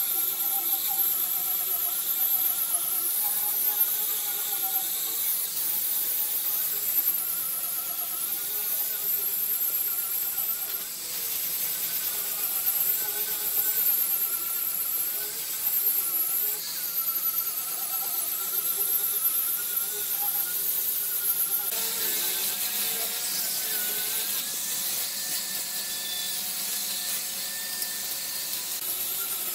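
Handheld electric sander with a round sanding pad running against pallet wood: a steady high motor whine whose pitch wavers slightly as it is pressed onto the boards. About two-thirds of the way through the pitch and tone shift a little.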